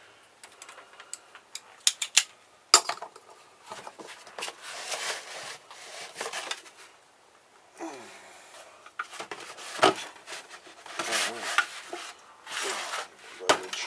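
Stainless steel parts of an old water filter clinking, knocking and scraping as they are worked apart by hand, with a sharp knock about three seconds in and a few short squeaks.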